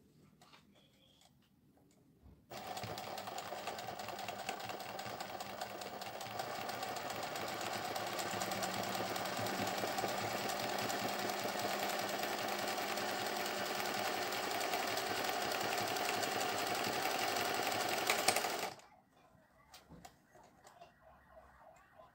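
Singer 20U industrial zigzag sewing machine running at speed, stitching an appliqué through a thick spot of felt. It starts suddenly a couple of seconds in, gets slightly louder over the first few seconds, runs steadily for about sixteen seconds, then stops abruptly.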